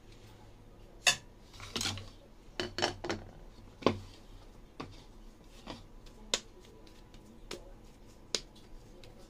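Kitchen bowls knocking and clinking as they are handled: about ten separate sharp knocks, the loudest about a second in and just before four seconds, with a quick cluster of them between.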